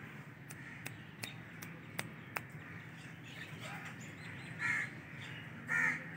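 Crows cawing: two short, harsh caws near the end, over a quiet background with a few faint sharp ticks in the first half.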